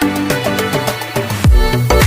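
Upbeat background dance music with a rhythmic beat; deep bass drum hits come in about three-quarters of the way through.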